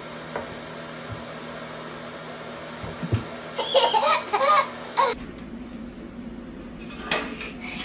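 A toddler laughing in a quick run of bursts about halfway through, over a steady low hum.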